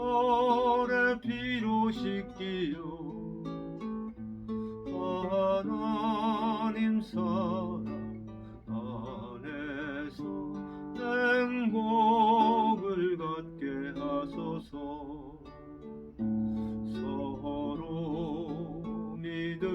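Music: acoustic guitar playing a gospel hymn accompaniment, with a melody line held with vibrato above it.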